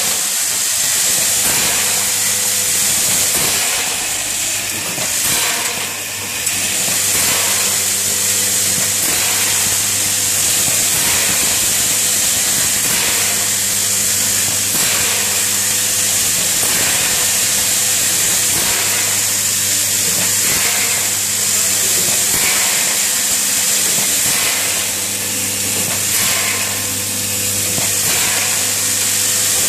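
Several vibratory bowl feeders running together on a screw-packing machine: a steady hum under a dense, hiss-like rattle of screws travelling round the steel bowls and down the feed tracks.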